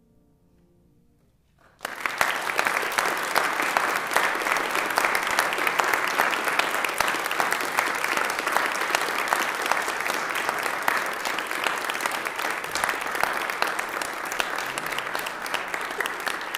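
An audience applauding, breaking out suddenly about two seconds in as the last faint chord dies away, then a steady run of clapping.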